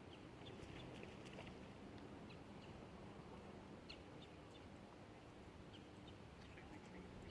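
Near silence: faint outdoor background with a low steady hum and scattered faint, short high chirps.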